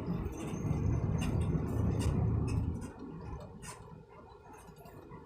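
Low rumble of a moving car heard from inside the cabin, which drops noticeably about three seconds in, with scattered light ticks and clicks.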